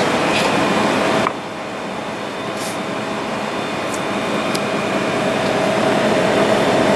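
Steady room hum like a ventilation fan or air conditioning, with a constant tone running through it. It drops suddenly to a lower level about a second in, then slowly builds back up; a few faint ticks sound over it.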